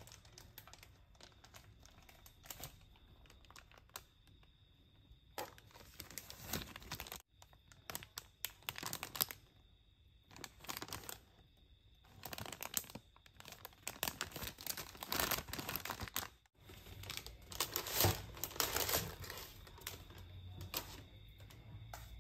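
Paper wrappers and packaging crinkling and rustling in repeated bursts as they are handled and a cookie is unwrapped.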